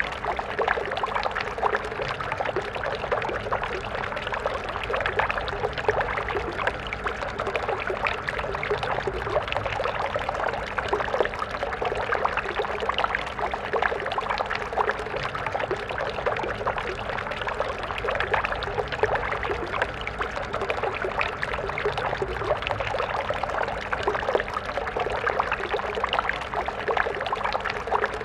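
Stream water flowing and splashing steadily, a dense bubbling rush.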